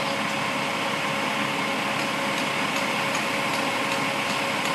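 Concrete mixer truck running steadily as it discharges concrete down its chute, a constant engine hum with a steady whine in it, and faint ticks and scrapes from about two seconds in.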